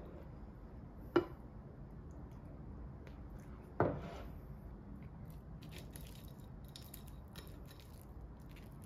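Chopsticks and ceramic tableware clinking twice, about a second and about four seconds in, the second ringing briefly, while noodles and fish cake are served from a pot into a small bowl. Faint light clicks of chopsticks follow.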